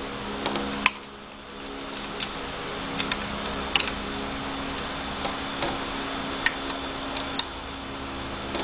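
Irregular light clicks and taps of a screwdriver turning and seating the pistol-grip screw on a rifle, over a steady low hum.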